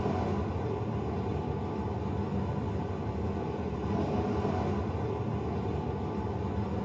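A movie soundtrack played through only four Klipsch CDT-5800-C II in-ceiling Atmos speakers: a steady, dense low rumble and noise that drops off suddenly at the very end.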